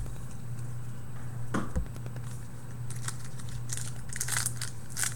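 Crinkling and rustling of a foil trading-card pack and cards being handled, starting about three seconds in, over a steady low hum.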